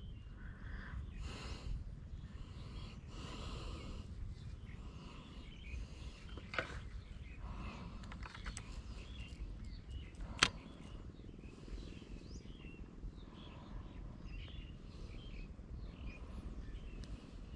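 Quiet outdoor ambience: a low steady hum with faint bird chirps, broken by two sharp clicks, a small one about six and a half seconds in and a louder one about ten and a half seconds in.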